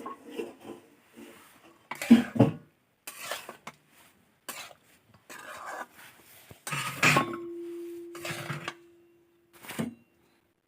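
Metal dishes and utensils clattering in a series of separate knocks and scrapes. The loudest knock, about seven seconds in, leaves one vessel ringing on with a single steady tone for a couple of seconds.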